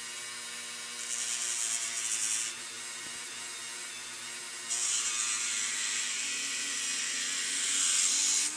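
Handheld rotary tool spinning a thin cut-off disc, its motor whining steadily, with two spells of hissing grind as the disc cuts into a clear plastic windshield: one about a second in, lasting about a second and a half, and a longer one from about five seconds in that grows louder and stops suddenly near the end.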